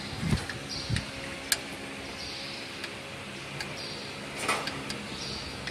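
Light metal clicks and knocks as the press bar of a hinge joint fence machine is handled and adjusted, with a brief scraping rustle about four and a half seconds in, over a steady low hum.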